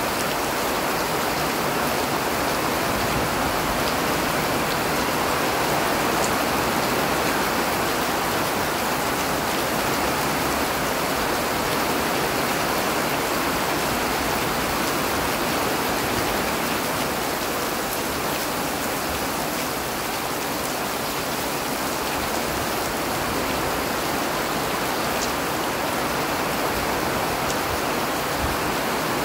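Steady rain falling: an even hiss with no change in loudness, and a few faint ticks now and then.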